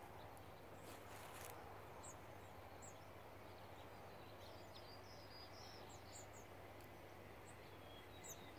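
Near silence: faint outdoor background noise, with a few short, faint bird chirps from about two seconds in.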